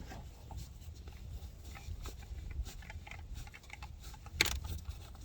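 Light clicks and taps of small objects being handled, with one sharper click about four and a half seconds in, over a low steady hum.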